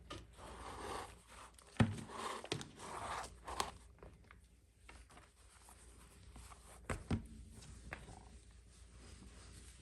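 Leather glove lace scraping and rustling as it is drawn through the lacing holes of a baseball glove, followed by a few sharp knocks.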